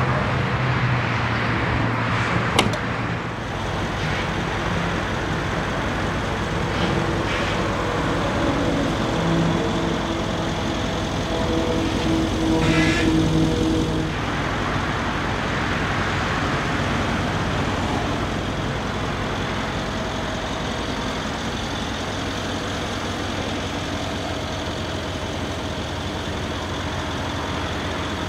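Mercedes-Benz E63 AMG S Wagon's twin-turbo V8 idling steadily, with a single click a few seconds in.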